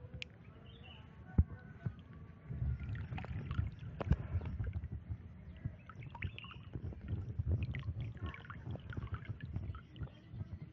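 Water splashing and draining from a hand net as it is lifted out of shallow water full of stringy green algae, with knocks and rustling of the net being handled. Quiet with a few sharp clicks at first; the splashing and dripping start about two and a half seconds in and keep up.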